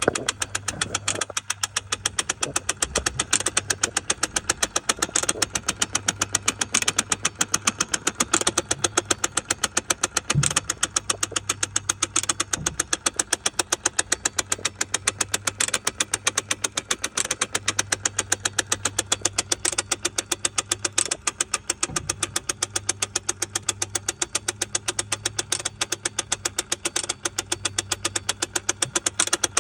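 Cruise control actuator of a 1986 Mercedes-Benz 560SL ticking in a fast, even rhythm although the cruise control is switched off, over the engine idling. The ticking while off is the fault being shown.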